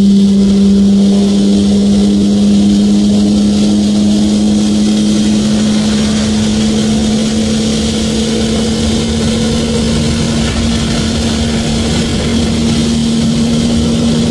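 Infiniti G35 coupe's VQ35DE V6 heard from inside the cabin, held at high revs under hard acceleration at highway speed. A steady drone that creeps slightly up in pitch, with wind and road rush.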